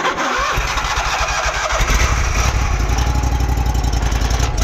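A high-pressure drain jetter's engine starting. It catches about half a second in and then runs with a steady low beat.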